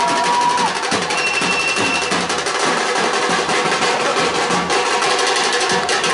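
Street drum band beating a fast, dense rhythm on handheld drums, including white-headed drums and a large steel-shelled drum. A high, steady tone is held twice in the first two seconds.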